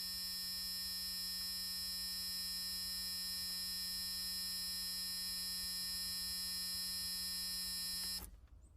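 A long, steady buzz on one harsh, unchanging pitch, which cuts off abruptly near the end.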